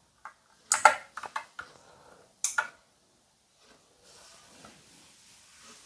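Keys of an Ant Esports MK3400 Pro V3 mechanical keyboard pressed one at a time: about six sharp clicks in the first two and a half seconds, as the keys are tested.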